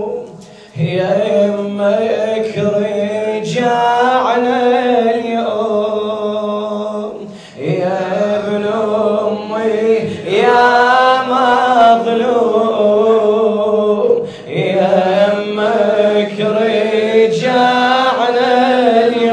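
Voice chanting an Arabic lament (latmiya) in long, drawn-out melodic phrases, with short breaks between them.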